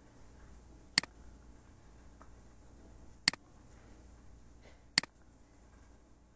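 Three sharp computer mouse clicks about two seconds apart, over a faint low background hum.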